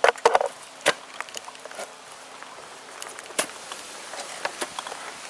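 Garden hoe working a soil, manure and fertilizer mix: irregular chops and scrapes, with a few sharper knocks near the start, about a second in and about three and a half seconds in.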